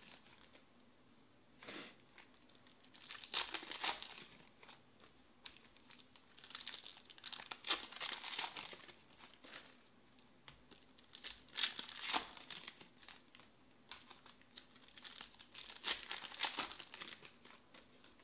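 Plastic wrappers of 2020 Panini Select Baseball trading-card packs being torn open and crinkled by hand, with cards slid out and handled, in about five short bursts a few seconds apart.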